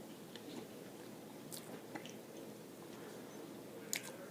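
A person chewing a mouthful of breakfast corn dog, sausage in a pancake coating, with soft wet mouth clicks and a sharper click near the end.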